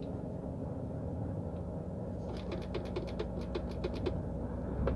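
Lorry cab interior: steady low rumble of the truck's engine and running gear while driving, with a quick run of about ten light clicks, several a second, around the middle.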